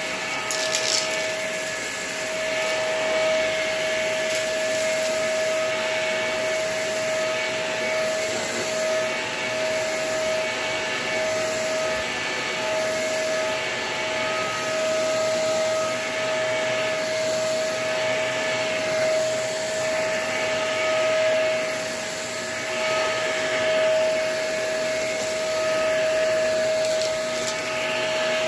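Vacuum cleaner running with a really dirty filter: a steady motor whine under a rush of air that swells and fades about every two seconds.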